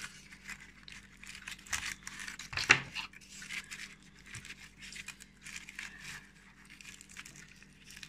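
Aluminium foil crinkling and rustling in short, irregular crackles as hands handle a foil-wrapped baked potato, with one louder crackle about two and a half seconds in.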